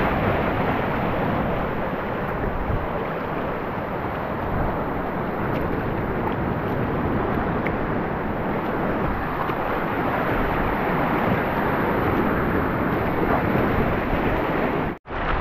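Sea waves washing and breaking over a rocky reef, a steady rushing noise with wind buffeting the microphone. The sound cuts out for an instant near the end.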